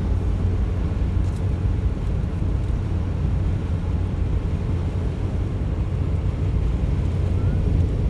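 Steady low rumble of a vehicle's engine and tyres on a snow-covered road, heard from inside the cab.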